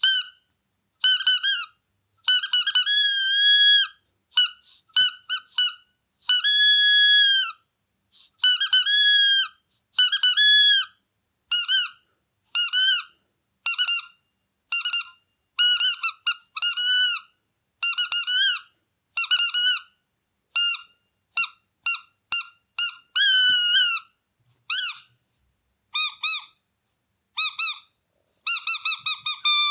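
Squeaky dog toy squeaking over and over: short squeezes, some in quick doubles and triples, and a few longer held squeaks, each high-pitched and bending up and down, with silent gaps between. Near the end comes a fast run of squeaks that slides down in pitch.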